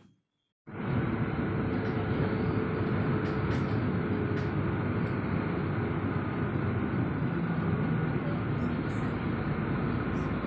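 Steady noise of a moving road vehicle heard from inside it, starting suddenly just under a second in.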